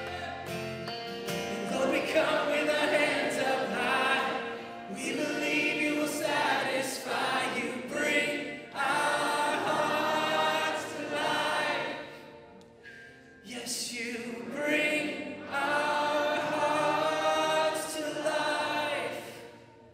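Worship team and congregation singing a slow gospel-style worship song together, many voices at once with light accompaniment. The singing thins out briefly about two-thirds of the way through, then picks up again.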